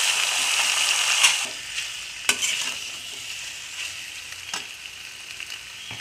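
Boiled penne pasta sizzling as it goes into hot oil with fried onions in a kadhai, loud at first and dying down to a quieter hiss after about a second and a half. A perforated steel spoon stirs it, with a few sharp clicks of metal against the pan.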